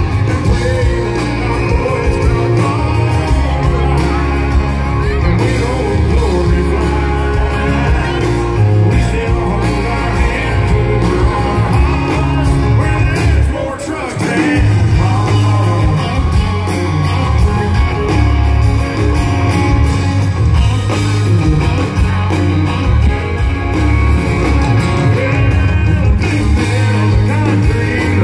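Live country rock band played over a loud PA, heard from within the crowd: a singer over electric guitars, bass and drums, with heavy low end and a steady beat. The music drops briefly about halfway through, then comes back in full.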